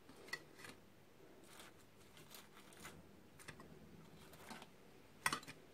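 Faint clicks and taps of metal kitchen tongs picking up crisp fried zucchini fritters from a paper-lined basket and setting them on a ceramic platter, with a louder tap near the end.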